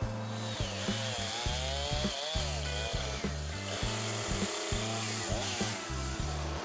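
Chainsaw cutting through a log, easing off near the end, over background music with a steady beat.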